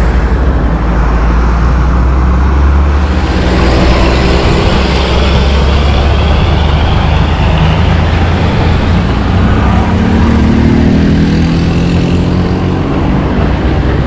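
Motor vehicle engine running on the road, rising in pitch in the second half as it speeds up, over a heavy, steady low rumble.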